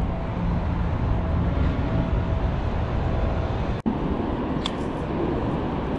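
Wind buffeting the action camera's microphone: a steady low rumble, broken by a brief gap about four seconds in.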